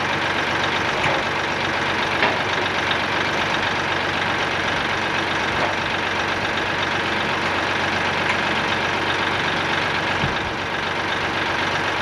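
Engine of the loader holding the log on its pallet forks, idling steadily, with a few light knocks.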